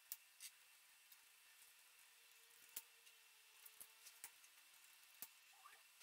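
Faint handling of 3D-printed plastic cable-chain links: about six sharp, irregular clicks as the links are snapped together by hand, with a brief squeak of plastic near the end.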